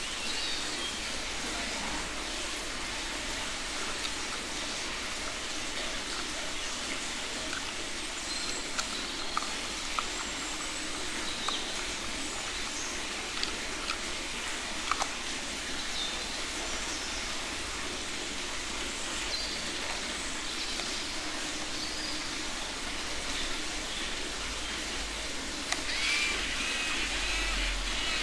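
Steady outdoor background hiss with occasional faint bird chirps, and scattered light clicks of plastic toy vehicle parts being handled and snapped together. Near the end the sound grows a little louder.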